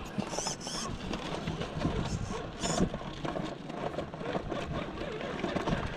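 Electric motor and gearbox of an upgraded Remo Hobby Honcho RC rock crawler whining under load as it climbs rock, the pitch wavering with the throttle, with a few sharp knocks of tyres and chassis on rock.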